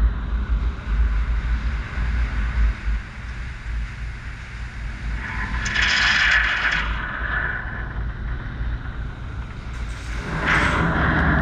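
D&S IQ soft-touch automatic car wash machine running over the car: a steady low rumble, a spell of hissing about six seconds in, and a louder, steadier hiss with a low motor hum starting near the end.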